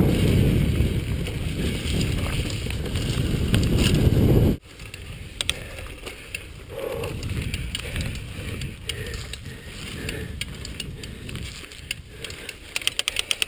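Chumba VF2 mountain bike ridden fast down a dirt singletrack: a loud low rumble of wind on the microphone and trail noise for the first few seconds, then a sudden drop in level to the bike's rattling and its freewheel ticking as it coasts, with a quick run of clicks near the end.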